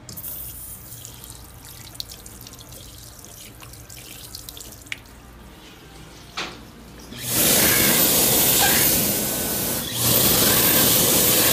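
Tap water running faintly into a restroom sink for about seven seconds. Then a Dyson Airblade dB hand dryer starts with a loud, steady rush of air and a thin high whine. Its level dips for about a second near the end before coming back to full.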